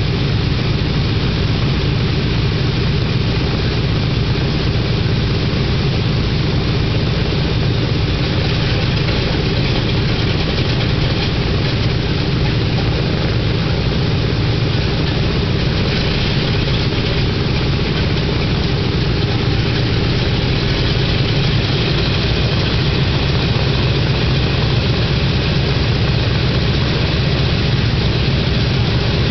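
Boeing B-17 Flying Fortress's Wright R-1820 Cyclone radial engines running at a steady idle after start-up, a heavy low drone with propeller noise on top.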